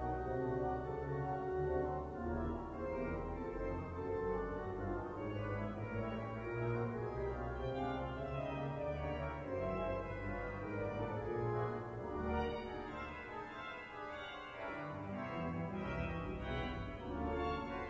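Durham Cathedral's pipe organ playing full chords over deep pedal notes that change every second or so, with moving lines above.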